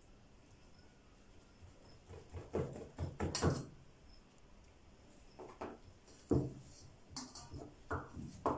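Kitchen knife cutting through cream-filled galash (layered phyllo pastry) in an aluminium baking pan, with a series of soft knocks and scrapes as the blade meets the pan, in two clusters, a few in the middle and several more near the end.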